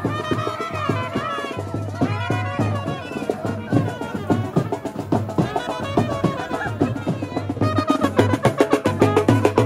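Loud wedding music: drums beating a steady rhythm under a wavering melody line. The drumming gets denser and louder near the end.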